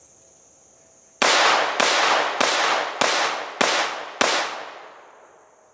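Kel-Tec P17 .22 LR pistol fired six times in steady succession, a bit under two shots a second, starting about a second in. Each shot is a sharp crack that echoes off and fades away. Insects keep up a steady high buzz underneath.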